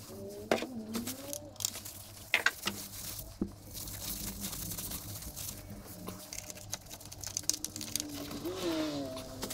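Plastic oil jug and funnel being handled, with a few sharp knocks in the first few seconds. Then a paper towel rubs and crinkles as the oil filler opening of the Mazda SkyActiv-G engine is wiped clean. A faint whine that rises and falls is heard at the start and again near the end.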